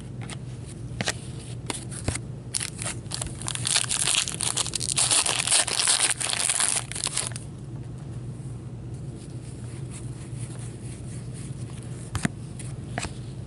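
Foil wrapper of a hockey card pack being torn open and crinkled, in a dense crackling burst for a few seconds midway. Scattered clicks of cards being handled come before and after it.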